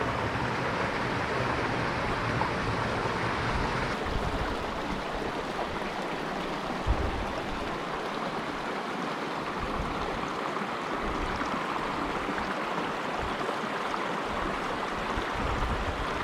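Steady rush of a flowing stream, with a brief low knock about seven seconds in.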